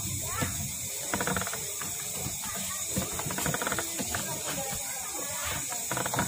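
Motorised coil-winding jig running, its gears ticking and clicking irregularly over a steady high hiss, as enamelled copper wire winds onto a transformer bobbin for the last layer of the primary.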